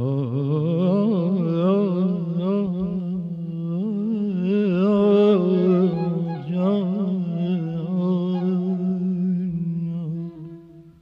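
A male voice singing a wordless melismatic passage (tahrir) in Persian classical avaz, the pitch wavering in quick ornaments, held and fading out about ten seconds in.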